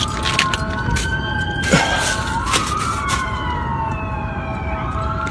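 Several emergency vehicle sirens wailing at once, their pitches sliding up and down and crossing over one another. A few sharp knocks cut through, the loudest about two seconds in.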